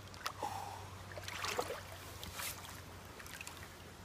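River water splashing and sloshing around a salmon held by the tail in the shallows as it is released, with a few short splashes, the busiest about a second and a half in.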